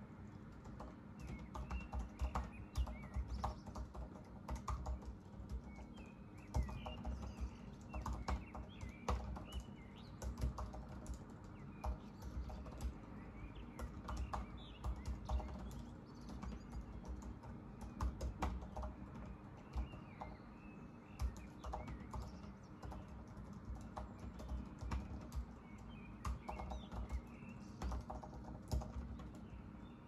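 Typing on a Mac keyboard: quick, irregular key clicks throughout, with short bird chirps scattered in the background.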